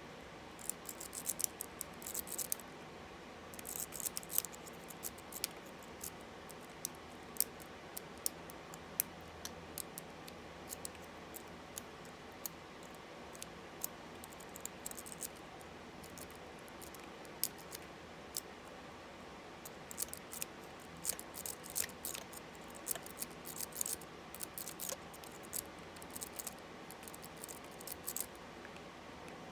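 A lock-pick rake scraping and clicking in the keyway of an Abus 64TI 30 mm padlock under a tension wrench. The small metallic ticks and scratches come irregularly, in clusters, with short pauses between.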